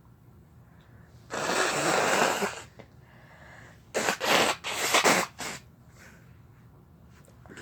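A person sneezing in a fit brought on by chhinkni sneezing powder: one long, loud, noisy sneeze, then a couple of seconds later a quick run of several short, sharp sneezes.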